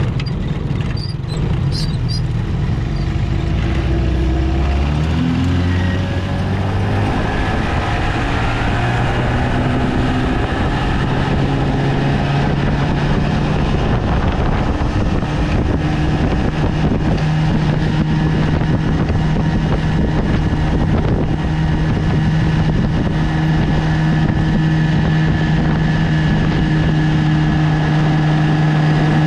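A 1973 Johnson 20 hp two-cylinder two-stroke outboard motor running under way. Its pitch rises over the first several seconds as it picks up speed, then holds steady.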